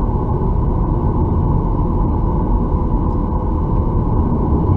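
Boeing 737-800's CFM56-7B jet engines idling, a steady rumble heard from inside the cabin.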